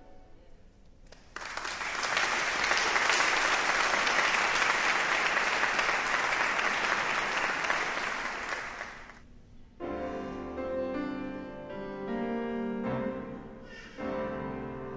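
Audience applauding steadily for about eight seconds, starting just over a second in. Near the end the applause stops, and piano and clarinet music begins.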